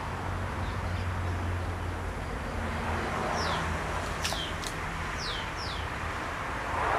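Small engine-driven water pump running steadily with a low hum. From about halfway, birds call with several short, falling whistled notes, with a couple of sharp ticks.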